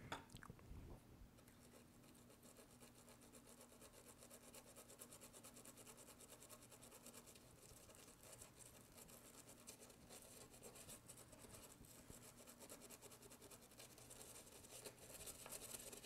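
Near silence: a faint low steady hum with faint fast scratchy rubbing.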